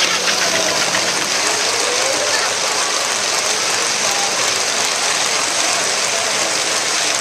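S gauge model freight train rolling past on metal track: a steady, fast clatter of wheels on rails with a gear-like whirr.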